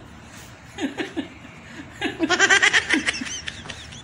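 Men laughing: a few short chuckles about a second in, then a louder burst of quick, high-pitched laughter from about two seconds in.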